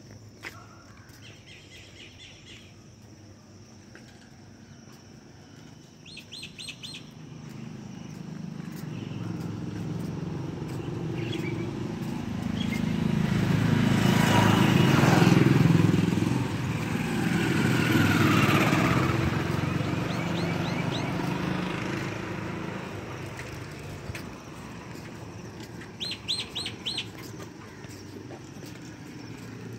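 A motor vehicle passes along the road, growing louder over several seconds, loudest in the middle, then fading away. A bird gives short runs of four or five quick high chirps, near the start, about six seconds in and near the end.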